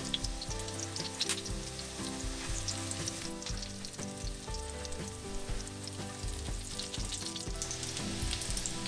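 Breaded sausage-and-cheese patties sizzling and crackling in hot vegetable oil in a frying pan over medium heat, under soft background music.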